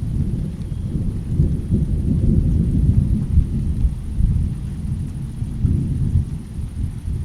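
Rolling thunder: a long low rumble that swells about a second in, churns unevenly, and eases slightly near the end.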